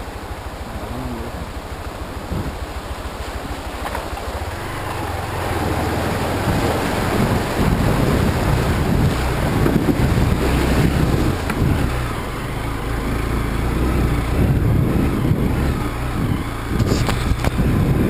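Hero Xpulse 200's single-cylinder engine running under throttle as the dirt bike rides through a shallow rocky river, getting louder about five seconds in, with water splashing around the wheels.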